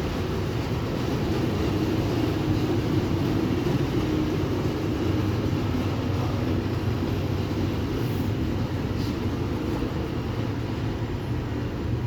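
2020 Nissan Rogue's four-cylinder engine idling steadily.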